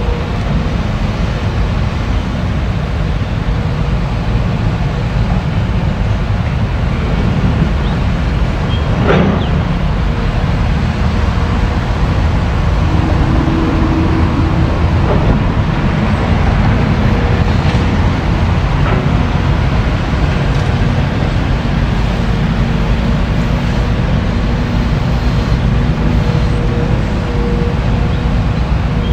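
Caterpillar tracked excavator's diesel engine running steadily under load, with a few scrapes and knocks of rock against the bucket. The loudest knock comes about nine seconds in.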